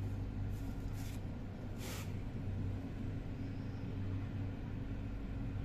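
A steady low hum, like a motor or distant traffic, with a few brief rustles about half a second, one second and two seconds in.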